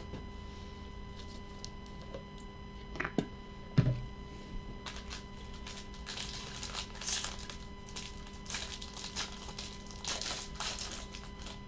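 A couple of sharp knocks on the table a little past three seconds in, the second the loudest, then the foil wrapper of a trading-card pack crinkling and tearing in gloved hands as it is opened. A faint steady electrical hum sits underneath.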